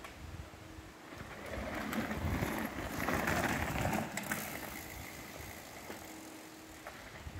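Mountain bike passing close by, its tyres rolling over a dirt trail. The sound swells to a peak about three seconds in and then fades as the bike rides away.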